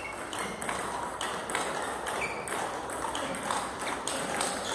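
Table tennis rally: the celluloid-type ball is struck back and forth by rubber-faced paddles and bounces on the table, making an even series of sharp pings and clicks.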